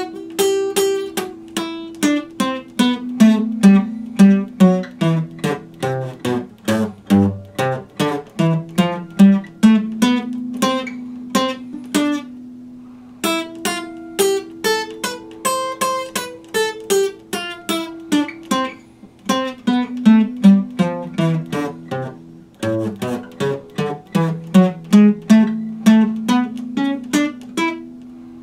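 Epiphone acoustic guitar played solo, picked note by note a few times a second over ringing low notes, in melodic phrases. The playing breaks off briefly twice.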